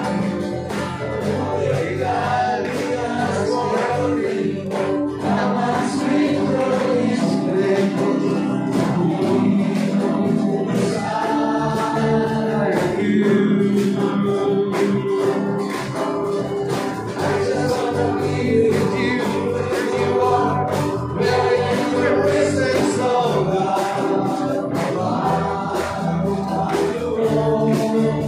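A live praise-and-worship band playing a gospel song, with electric guitar, acoustic guitar and keyboard under voices singing.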